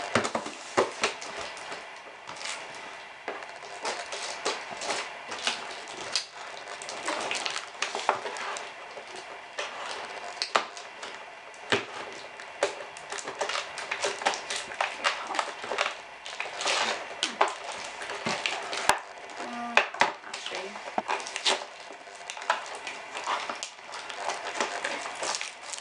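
Scissors snipping and scraping at packing tape on a cardboard box, with fingers picking and tearing at the tape: an irregular run of clicks and scratchy rustles.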